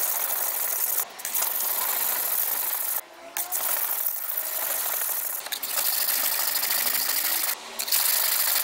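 Long gyuto blade ground by hand flat-side down on a wet, coarse #120 Sigma Power whetstone: a steady scraping hiss in long strokes, broken by four short pauses. The back is being ground away to bring the hard steel core back out to the edge.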